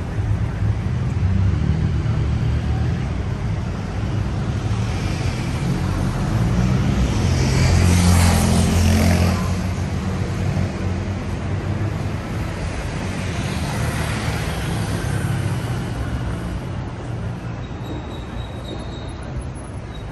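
Busy city-street road traffic: a steady low rumble of engines and tyres. A vehicle passes close near the middle, the loudest moment, and a smaller pass follows a few seconds later.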